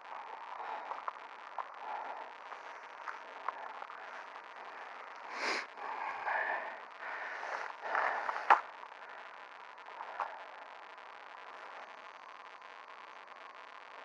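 Steady hiss with scattered faint clicks, and a few short bursts of rustling noise in the middle, ending in a sharp click about eight and a half seconds in.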